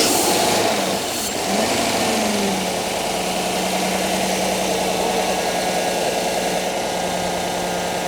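Chevrolet Silverado pickup engine just after starting: the revs flare and waver for a couple of seconds, then settle into a steady, smooth idle.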